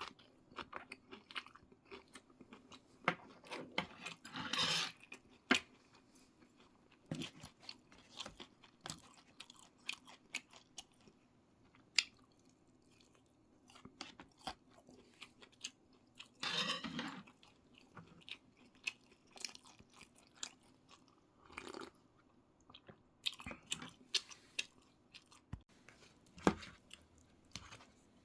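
A person chewing and crunching food close to the microphone, in many irregular sharp clicks with a few longer, louder bursts.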